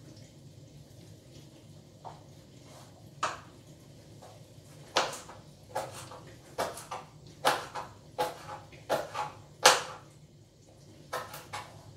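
Kitchen knife chopping vegetables on a plastic chopping board: a string of sharp, uneven knocks, sparse at first, then coming quickly in the middle, with a couple more near the end.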